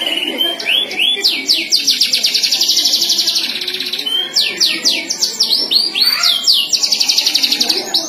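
Domestic canary singing: a continuous song of quick down-slurred notes alternating with long, very fast trills, one about two seconds in and another near the end.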